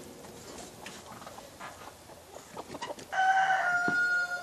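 A rooster crowing: one long, nearly level call starting about three seconds in, after a few faint knocks.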